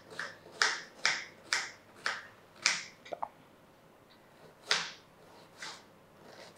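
Kitchen knife chopping an onion into small pieces: sharp chops about two a second for the first three seconds, then two slower, spaced-out chops.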